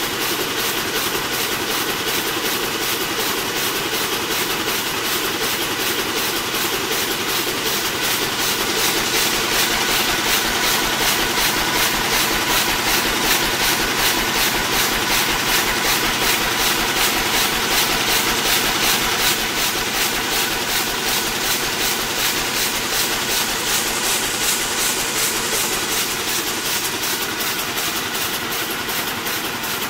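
Rapier loom running at speed while weaving, with a fast, even mechanical clatter that keeps up throughout.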